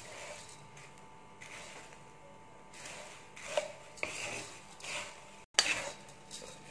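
Wooden spatula stirring and scraping beaten rice flakes (aval) around a kadai in irregular strokes, a dry rustling scrape as the flakes roast until crisp.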